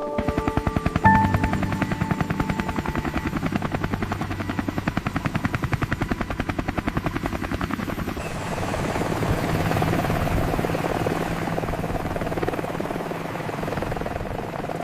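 Helicopter rotor beating in a rapid, regular chop over a steady engine drone. About eight seconds in the beat blurs into a steadier rush.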